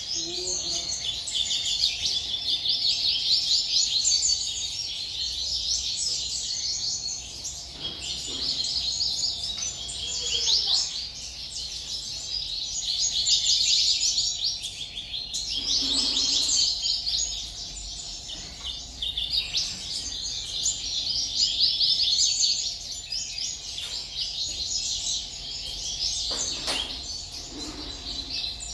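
A flock of small captive birds chirping and twittering without pause, a dense chorus of rapid high chirps that swells and eases in waves. Under it runs a faint steady hum.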